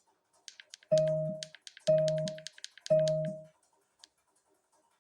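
Three identical low electronic tones about a second apart, each fading out within about half a second, with a quick run of light clicks over them: a short burst of audio playback from the computer and Bluetooth speaker while playback is being tested.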